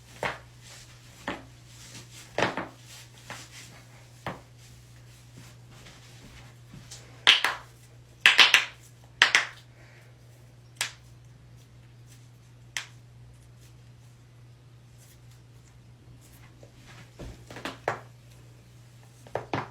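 Joints cracking and popping during chiropractic adjustments: a dozen or so sharp pops at uneven intervals, some in quick pairs or clusters, the loudest group near the middle, over a steady low hum.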